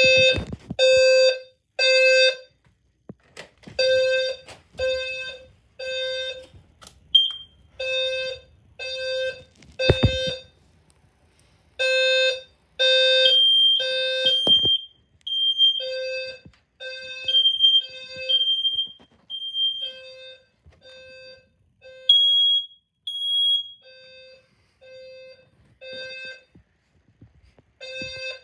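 Home fire alarms being tested, beeping over and over in short half-second beeps that come in irregular runs. Midway a second, higher and thinner alarm tone joins in, and there are a couple of sharp knocks around ten and fourteen seconds in.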